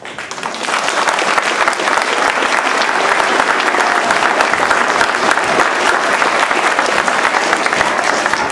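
Audience of schoolchildren applauding. The clapping swells over the first second and then holds steady.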